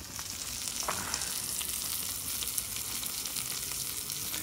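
Ribeye steak sizzling and crackling on a hot cast-iron grill plate, its rendered fat burning in a flare-up.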